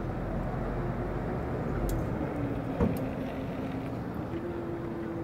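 Steady low rumble of distant motor traffic with a faint drifting engine hum, and a single sharp click a little before three seconds in.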